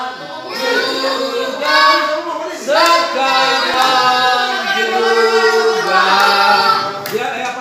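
A group of children singing a song together, with several notes held for about a second.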